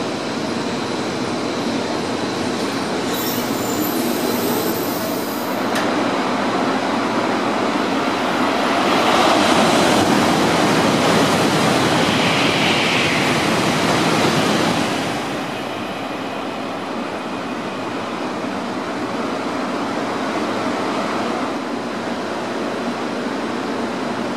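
Shinkansen high-speed train rushing through the station without stopping: a loud rush of air and rail noise that builds about a third of the way in, holds for several seconds and then drops off abruptly, over the steady hum of a Shinkansen standing at the platform.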